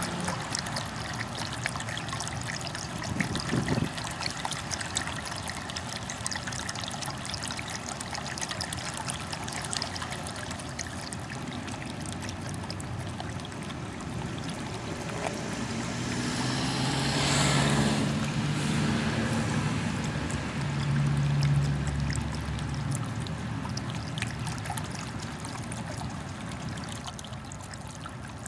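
Steady trickling water with many small splashy clicks. About two-thirds of the way through, a vehicle passes, swelling up to a peak and fading away with a low engine hum.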